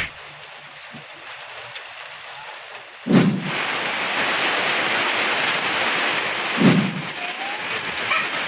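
Rain falling steadily, with a light hiss at first that turns heavier and louder about three seconds in. A brief low rumble comes at that change and again near seven seconds.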